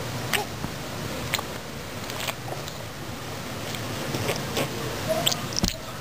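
A baby slurping water from a puddle with his mouth: scattered short wet clicks and smacks, about one a second, over a low steady background noise.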